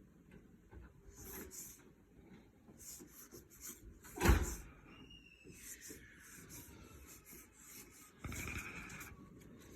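Trading cards being handled, sliding and rubbing against one another in a few soft swishes, with one louder knock a little over four seconds in.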